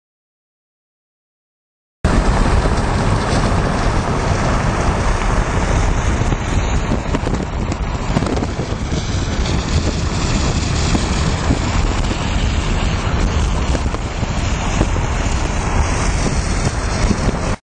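Wind noise buffeting the microphone, with road noise from a moving vehicle. It starts abruptly about two seconds in, after silence, and cuts off suddenly at the end.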